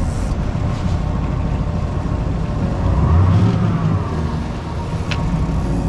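Boat's outboard motor running under way, its pitch rising and falling again about three seconds in as the throttle is worked. A single sharp click near the end.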